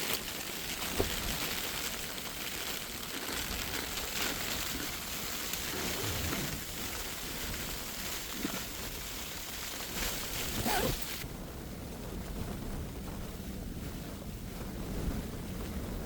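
Blizzard wind blowing against a mountain tent, heard from inside: a steady rushing hiss with a few short sharp snaps. The high hiss drops away abruptly about eleven seconds in, leaving a lower rumble.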